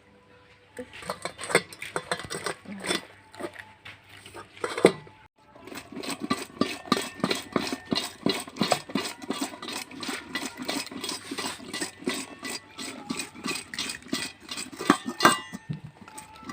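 Metal utensils clinking and scraping against cookware. Irregular knocks for the first few seconds, then after a brief break a quick, fairly even run of strikes, about four or five a second.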